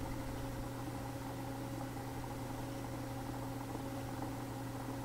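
Spinolution Firefly electric spinning wheel running at a set speed: a steady, even motor hum as the flyer and bobbin spin and wool is drafted onto them. Part of the hum reaches the microphone as vibration through the shared tabletop.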